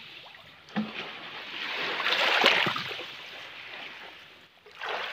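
Small waves lapping on a beach of coarse shell-gravel: a wash of water rushes up and drains back, loudest about halfway through, and the next wave starts to come in near the end.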